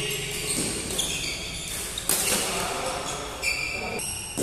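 Doubles badminton rally: rackets strike the shuttlecock with sharp hits about a second in and again about two seconds in, among short squeaks of shoes on the court floor.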